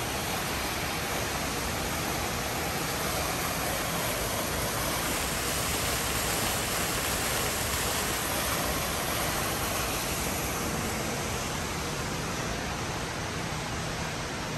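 Steady rushing of a waterfall, a little louder midway.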